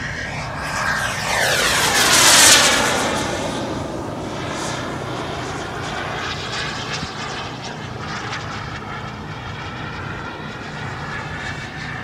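Radio-controlled model airplane making a fast pass. Its engine noise swells to a peak about two and a half seconds in and falls in pitch as it goes by, then carries on steadily as the plane flies on.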